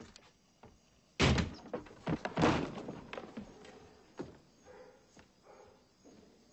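A door slams shut about a second in, followed by a second heavy thud and a few fainter knocks that die away.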